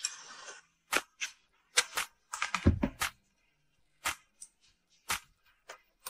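Kitchenware being handled and set down: a string of separate sharp clicks and taps, with a heavier knock about two and a half seconds in.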